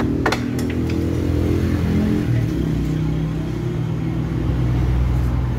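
A vehicle engine running, its pitch shifting up and down a few times, with a sharp click just after the start.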